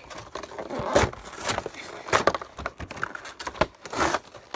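Plastic shrink-wrap and cardboard packaging of a Pokémon trading card box being torn and crinkled open by hand, in an irregular run of rustles and rips.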